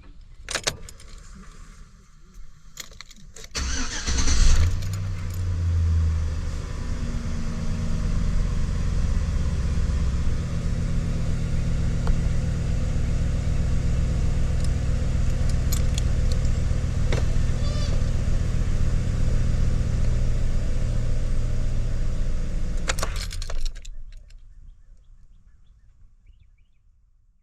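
2007 Chevrolet Silverado's 5.3-litre V8 being started: a couple of clicks from the key, then a short crank about three and a half seconds in that catches with a brief flare of revs. It settles into a steady idle for about twenty seconds and stops near the end.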